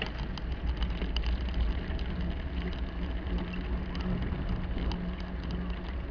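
A bicycle rolling over concrete paving blocks: a steady tyre rumble with faint scattered clicks and rattles, picked up by a camera mounted on the bike.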